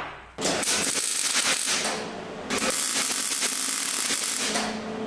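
Welder crackling in two runs with a short pause between them, tack-welding a stainless exhaust tip onto the car's exhaust pipe. A steady hum takes over near the end.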